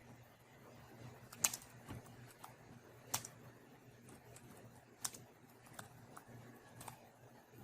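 Keys on a computer keyboard pressed now and then: a few sharp clicks one to two seconds apart, with fainter taps between, over a steady low hum.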